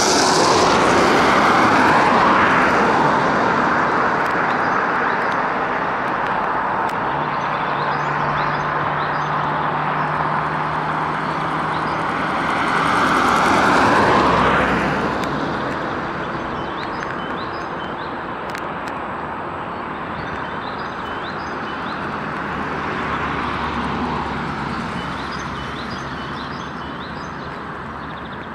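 Cars passing close on an asphalt road: the tyre and engine noise swells and fades about two seconds in and again around fourteen seconds, over a steady hum of traffic. Small birds chirp in the second half.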